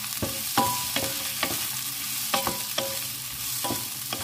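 Wooden spatula stir-frying sliced red peppers and ginger in a hot non-stick wok: a steady sizzle, with irregular knocks of the spatula against the pan, about seven, several leaving a brief ring.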